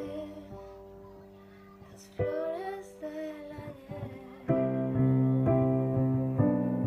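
A woman singing two short phrases over soft accompaniment. About four and a half seconds in, louder piano chords come in, struck about once a second.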